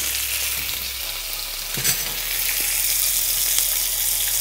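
Salmon fillets sizzling steadily in hot olive oil in a frying pan while being turned over with a metal spoon, the skin side seared to a crisp crust, with a short louder sound about two seconds in.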